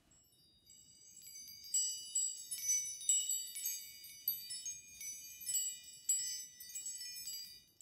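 Metal chimes ringing: many high, bell-like notes struck in an irregular run from about a second in, overlapping as each rings on.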